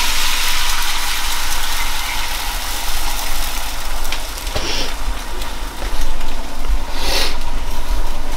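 Liquid egg whites sizzling in a hot frying pan: a steady crackling hiss that swells louder twice, about four and a half and seven seconds in, over a steady low hum.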